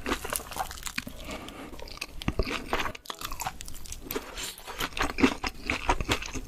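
Close-miked eating: a rapid, irregular run of crunches as someone bites into and chews crisp food, with a brief break about three seconds in.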